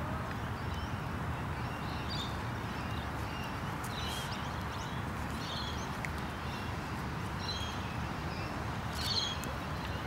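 Steady outdoor background noise, mostly a low rumble, with brief faint high bird chirps scattered through it.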